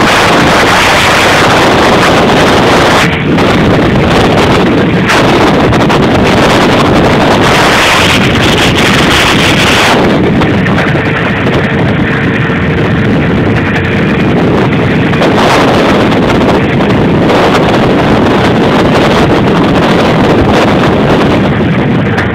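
A 6 hp Evinrude outboard motor running steadily, driving a small jon boat under way, with heavy wind buffeting the microphone.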